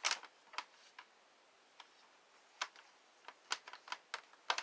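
Scattered sharp clicks and light knocks of a Shark vacuum's plastic housing and parts being handled and turned over, about eight at irregular intervals.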